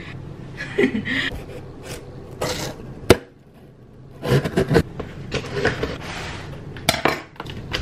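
A kitchen knife slitting the packing tape on a cardboard box, with scraping rasps and knocks as the box is cut open and handled; a sharp knock about three seconds in.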